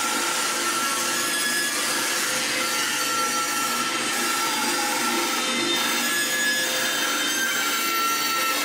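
Steady workshop machinery noise: a continuous rasping hiss with faint tones coming and going, unchanged throughout.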